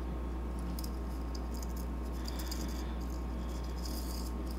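Thin 32-gauge Kanthal wire being handled at its spool: faint light ticking and rustling, starting about a second in, over a steady electrical hum.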